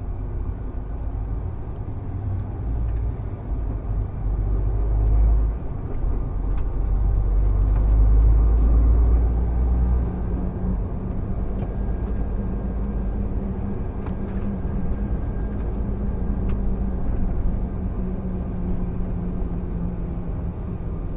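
Lorry's diesel engine and tyre noise heard from inside the cab. A deep rumble swells for a few seconds about a quarter of the way in as the lorry picks up speed, then settles into a steady drone at cruising speed.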